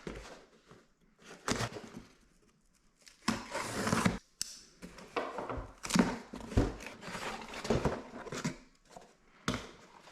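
A small box and its packaging being opened and handled: irregular rustling, scraping and clicks coming in bursts, with the longest stretch about three to four seconds in.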